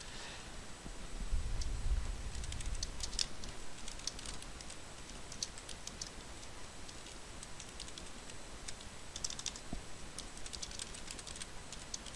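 Typing on a computer keyboard: irregular key clicks, with a brief low rumble about a second and a half in.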